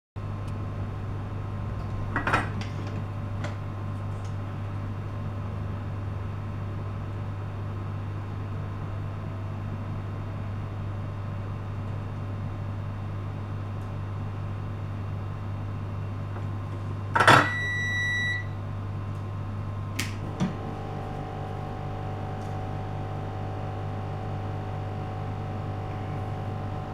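Steady electrical hum with a few clicks. About 17 seconds in comes a sharp click and a single beep lasting about a second, and after another click a steady higher whine sets in.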